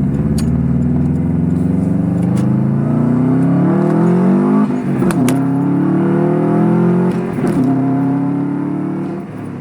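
Subaru engine pulling hard under acceleration, rising in pitch and dropping sharply twice as it shifts up through the gears.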